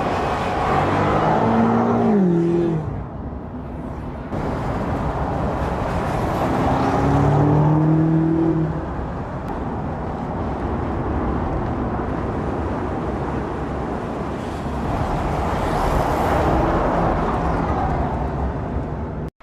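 BMW M5 Competition's twin-turbo V8 driven hard, its engine note dropping about two seconds in and then climbing again a few seconds later, over heavy wind and road noise.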